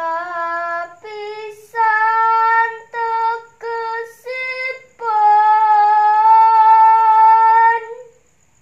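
A girl's solo voice singing Javanese macapat unaccompanied: several short phrases with small pitch turns, then one long held note that ends near the close.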